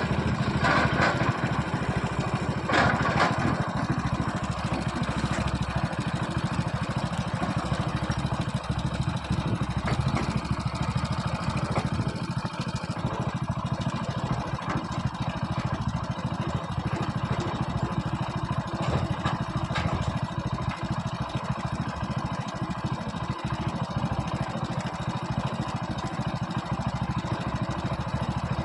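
Heavy diesel engines of an excavator and tipper truck running steadily, with a couple of brief knocks in the first few seconds.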